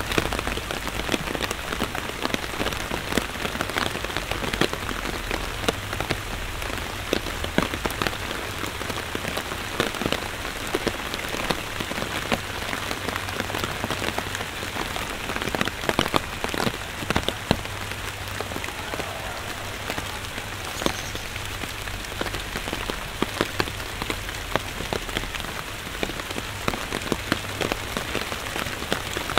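Steady rain falling, an even hiss dotted with many sharp, close drop hits.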